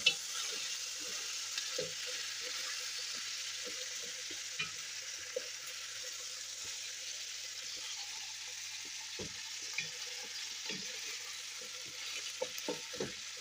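Boiled lamb pieces and onions sizzling steadily in a hot stainless steel pot as they brown, with scattered knocks and scrapes of a wooden spatula stirring against the pot, more of them near the end.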